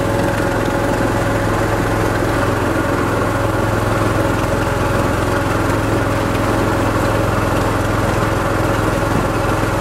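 A river passenger boat's engine running steadily while the boat is under way, an even, unchanging hum.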